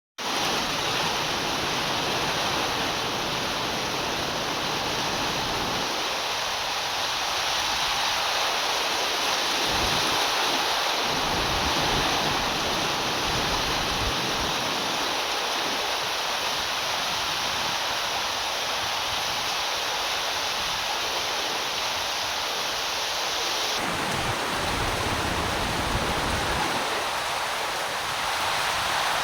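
Steady heavy rain, an even hiss throughout, with a low rumble that comes and goes several times.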